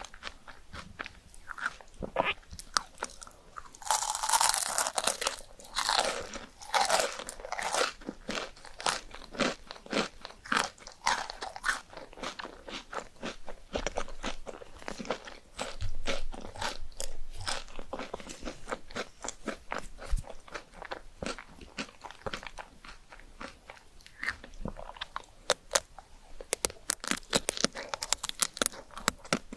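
Close-miked eating of chocolate ice cream: a steady run of crisp crunches as it is bitten and chewed, busiest and loudest about four to eight seconds in.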